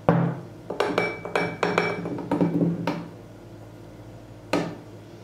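Knocks and glassy clinks from a glass mixing bowl as soft dough is worked in it by hand, with a glass of flour alongside: a quick run of about seven in the first three seconds, then one more near the end.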